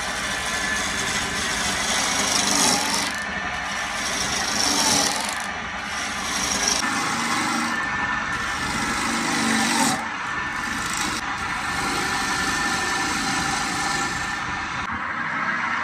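Gouge cutting a spinning ash blank on a wood lathe: a continuous scraping hiss as shavings come off the wood. The sound changes abruptly about 7 and 10 seconds in and then carries on.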